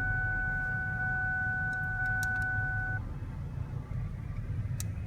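A 2002 Ford Taurus's engine idling, a steady low rumble, with a steady high electronic tone over it that cuts off about three seconds in.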